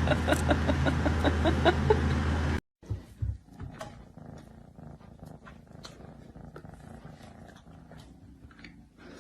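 A cat purring loudly and steadily, with short high chirps over it about four times a second. The purring cuts off suddenly after about two and a half seconds, leaving a much quieter stretch of faint clicks and rustling.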